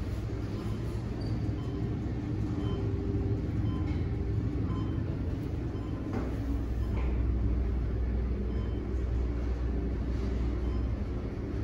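Hotel elevator car, a Haughton unit modernized by Schindler, travelling down the shaft at speed: a steady low rumble and hum of the moving cab.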